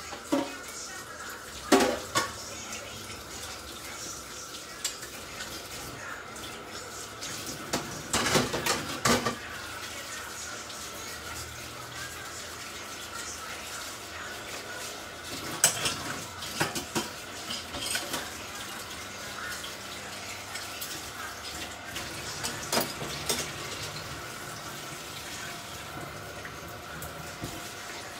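Kitchen clatter of dishes, pans and cutlery being handled, in several short bursts of knocks and clinks, over a steady background hiss with a faint steady tone.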